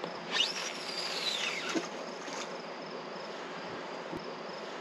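A fishing reel's spool whirring as line pays out on a cast: the pitch rises quickly, then falls slowly over about a second and a half as the spool slows. Insects buzz steadily underneath, and there is a small click later on.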